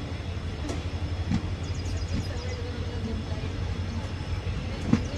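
Passenger train at a station platform: a steady low rumble with scattered clicks and knocks.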